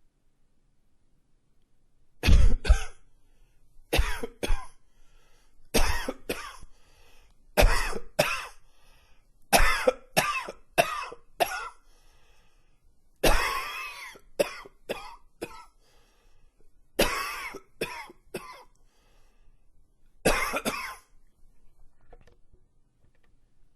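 A man coughing in a fit: bouts of two to four coughs every two to three seconds, starting about two seconds in and stopping near the end.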